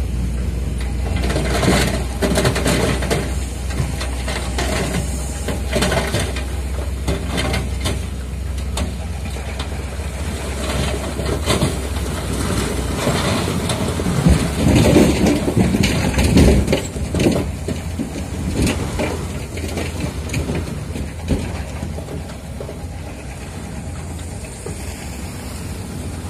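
A Hino 500 dump truck's diesel engine runs while the bed tips and a load of fill soil and rocks slides out with a clattering rumble. The heaviest rush of falling rock comes about midway.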